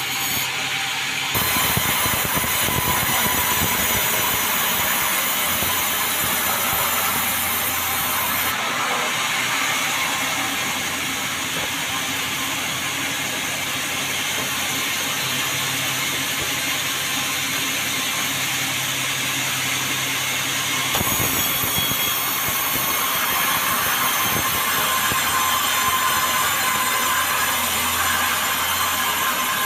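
Sawmill running and its blade cutting through meranti timber: a continuous dense machine and sawing noise whose character shifts abruptly a few times.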